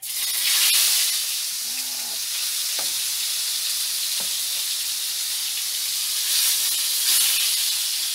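Fish pieces frying in hot coconut oil in a small pan: a loud, steady sizzle that starts suddenly as the fish goes in, with a couple of crackling pops. Loud, noisy frying like this is the sign that the fish is not yet cooked through.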